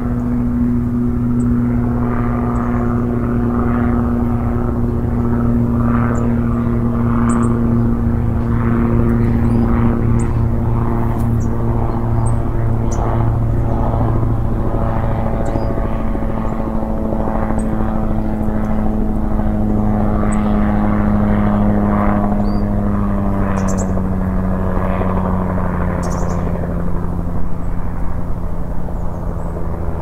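A steady engine drone from an aircraft, its pitch sinking slowly in the second half as it passes. Short high chirps come through faintly here and there.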